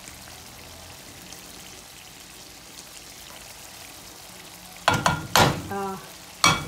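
Mutton curry sizzling steadily in an aluminium pot over a low flame as it fries down and the oil separates. Near the end come a few loud scrapes and knocks as a wooden spoon stirs it against the pot.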